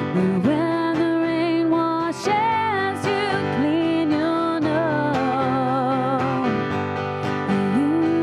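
Music: a woman singing a slow melody with vibrato over strummed acoustic guitar.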